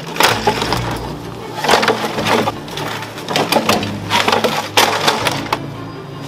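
Plastic dashboard trim of a scrap car being wrenched out by hand, with repeated sharp cracks and snaps as clips and brackets break.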